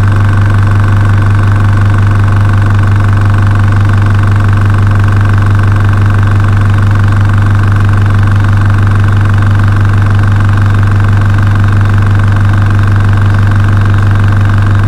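Small airbrush compressor with an air tank running steadily with a loud, even hum while it charges the tank toward its 2 bar (30 psi) cut-out pressure.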